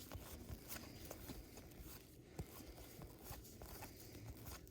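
Faint rustling and small scattered clicks of a trading-card pack being handled: wrapper crinkling and cards being slid and flicked.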